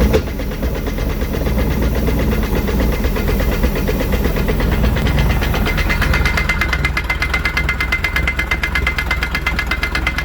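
1988 MerCruiser 3.0 four-cylinder sterndrive engine running steadily. About six seconds in, a fast, even rattling clatter starts on top of it and keeps going: the noise that the owner traces to the outdrive and doesn't like.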